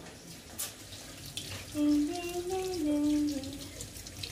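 Water running from a kitchen tap, with a few faint clicks. About two seconds in comes a louder pitched tone, held for about a second and a half, that steps up and then back down.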